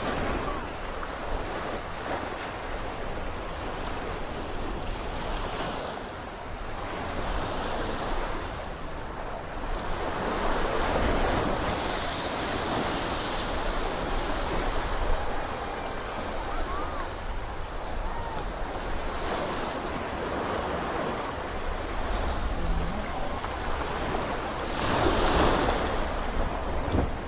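Ocean surf breaking and washing up on a sandy beach, a steady rushing that swells louder twice, about ten seconds in and again near the end, with wind buffeting the microphone.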